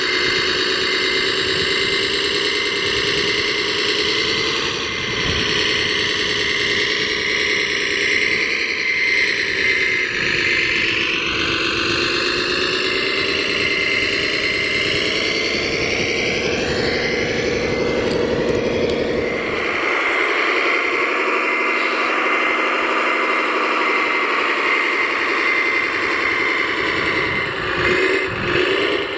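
Radio-controlled construction models running, with a steady whine that slowly rises and falls in pitch as they work.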